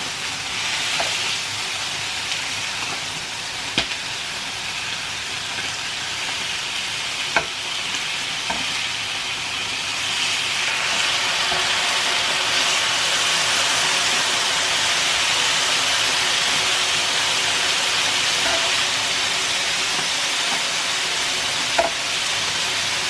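Steaks sizzling on a hot electric contact grill, a steady hiss that grows louder about ten seconds in, with a few sharp clicks of metal tongs as the meat is turned.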